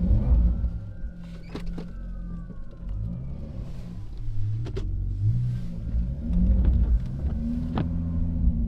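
Car engine running, its pitch rising and falling in uneven surges, with a few sharp clicks.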